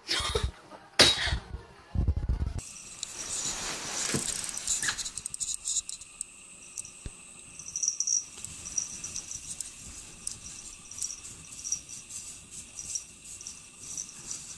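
A cat clawing and scraping at a wall of packed snow, a long run of small scratchy crunches. It follows a few loud knocks in the first two seconds or so.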